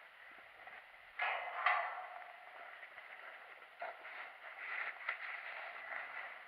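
Faint scuffing and rustling of someone moving over a gritty, debris-strewn floor, with one louder scrape about a second in and a small click near the middle.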